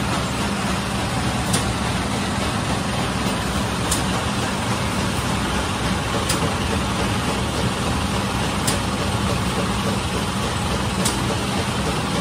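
Steady mechanical running noise with a low hum from an automatic bread-baking machine, with a faint tick about every two and a half seconds.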